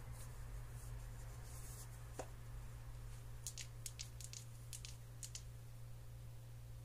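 Quiet room with a steady low hum, one faint click about two seconds in and a quick run of half a dozen faint clicks and rustles in the middle.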